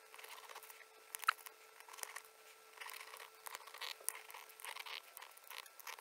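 Small screws being turned into a plastic remote-control case with a small screwdriver: faint, irregular scraping and clicking, with one sharper click about a second in.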